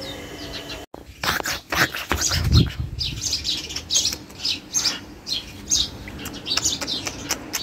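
Small birds chirping in many quick, short, high calls, with a brief low rumble about two seconds in.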